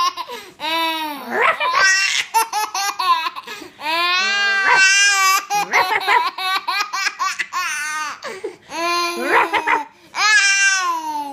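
A baby laughing hysterically in repeated bursts of laughter, with short breaks between them.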